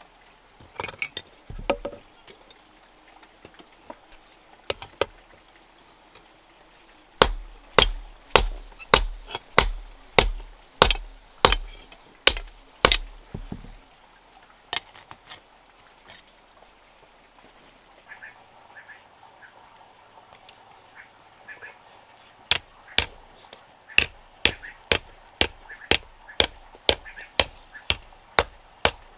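Repeated sharp hammer blows, about one and a half a second, stopping for several seconds in the middle, then starting again a little faster, about two a second.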